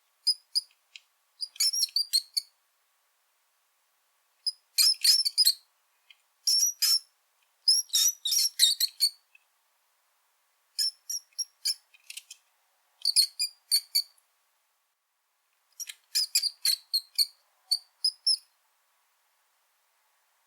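Brown rat (Rattus norvegicus) squeaking: high-pitched squeaks come in quick clusters of several at a time, with short silent pauses between the clusters.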